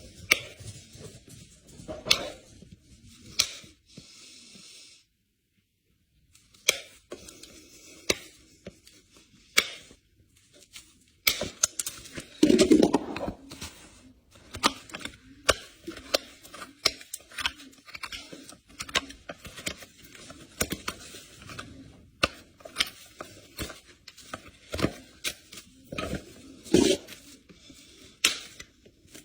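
Hoof-care tools working on a hoof: a long run of sharp clicks and knocks, with a louder, rougher stretch about twelve seconds in.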